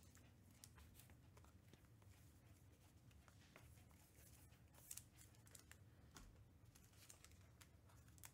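Near silence with faint, scattered clicks and rustles of trading cards being handled, one slightly louder click about five seconds in.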